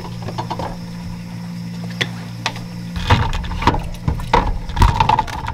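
Refrigerator humming steadily. About three seconds in, a run of knocks, clinks and rattles begins as a hand moves bottles on the wire shelf.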